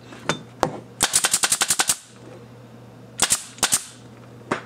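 CO2-powered Central Pneumatic 23-gauge pin nailer dry-fired without nails, each shot a sharp pop. Two single shots, then a rapid string of about ten in under a second, then a few more single shots.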